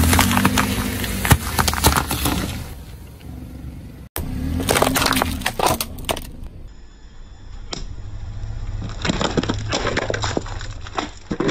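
A car tyre rolling over whole apples, crunching and squashing them under the car's engine hum, then, after cuts, crushing a hard wrapped lollipop with a cluster of sharp cracks and crackles about nine to eleven seconds in.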